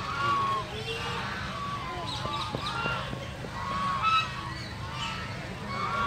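A flock of white domestic geese honking, with many short nasal calls overlapping and repeating throughout.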